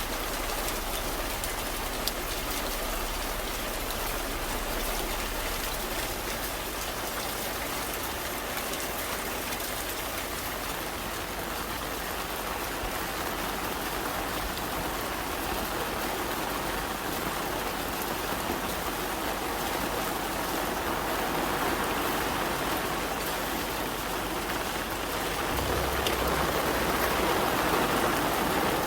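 Steady rain, an even hiss of falling drops with fine patter on hard surfaces, growing a little heavier near the end.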